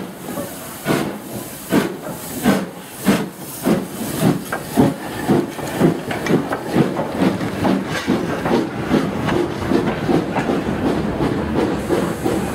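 LNER Thompson B1 class two-cylinder 4-6-0 steam locomotive pulling away with a train: its exhaust beats start about a second apart and quicken steadily to about three a second as it gathers speed, with steam hissing throughout.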